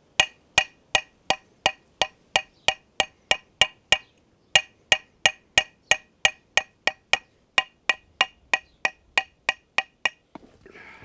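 Small hammer tapping a copper bracelet on a metal cobbler's last used as an anvil: sharp ringing metal taps, about three a second, with a short pause about four seconds in. The hammering stops about ten seconds in, followed by a brief rustle.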